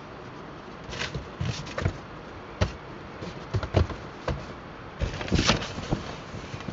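Irregular knocks, clatters and rustling of gear being handled close to the microphone, starting about a second in, over a steady background hiss.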